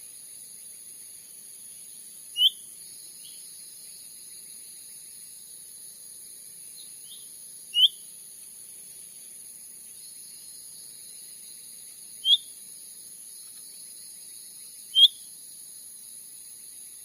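Cucak ranting calling: short, high whistled notes that sweep in pitch, one every three to five seconds, with a couple of fainter notes between them. A steady high-pitched insect drone runs underneath.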